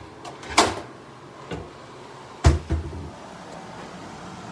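Rummaging in a wooden kitchen cabinet for a pan lid: a few separate knocks and clatters, the loudest a dull thump about two and a half seconds in.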